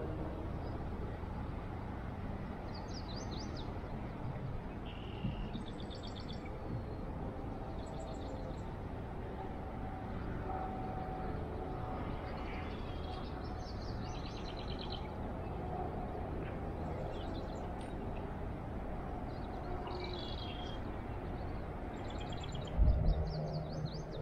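Small birds chirping, short runs of quick high notes every few seconds, over a steady low outdoor rumble. A single low thump near the end.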